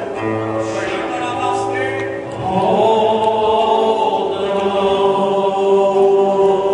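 Worship singing in a church: a group of voices singing long held notes over a steady low note, swelling louder about two and a half seconds in.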